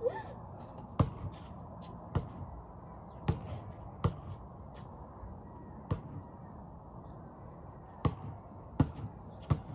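Basketball bouncing on a concrete driveway: about eight slow, uneven single bounces, mostly a second or so apart, with longer pauses in the middle.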